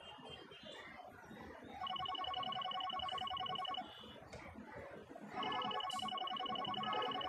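Mobile phone ringing: two rapidly pulsing, trilling rings of about two seconds each, the first starting about two seconds in and the second about five and a half seconds in.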